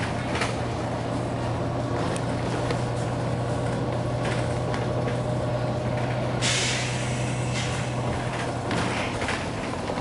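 Volvo B9TL double-decker bus running on the move, its six-cylinder diesel a steady low drone heard from inside. About six and a half seconds in, the bus's compressed-air system lets out a sharp hiss lasting just over a second.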